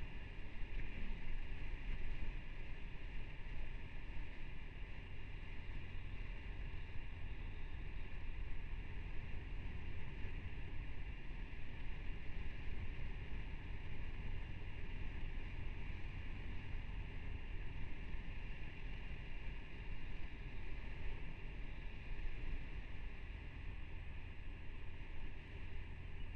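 Motorcycle running steadily at road speed, its engine and the wind rush mixed into an even noise, picked up by a helmet-mounted camera.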